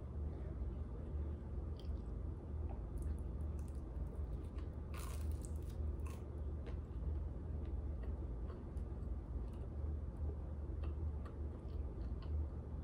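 A person biting and chewing thick pan pizza crust close to the microphone, with small wet mouth clicks and one louder moment about five seconds in. A steady low hum runs underneath.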